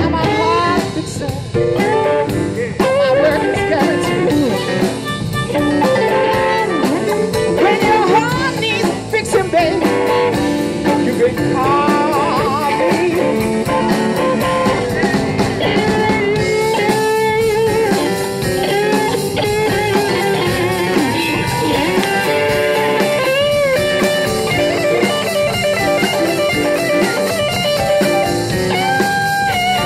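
Live blues band playing, with electric guitar, drum kit, keyboard and harmonica.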